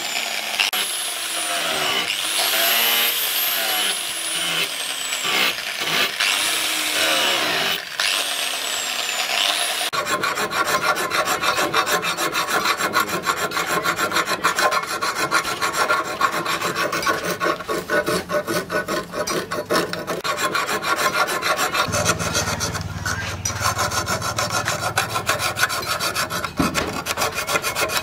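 An angle grinder works the steel knife blade, its whine sliding up and down in pitch. About ten seconds in this gives way to a small round file being stroked quickly back and forth in a notch of the steel blade, a steady run of filing strokes.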